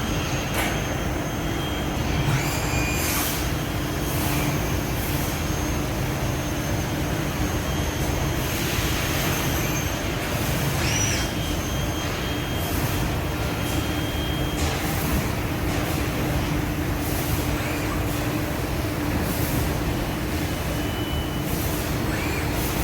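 Transfluid EDB 642-CNC tube bender running: a steady machine hum with scattered knocks and a few short metallic squeals as it bends steel tubing.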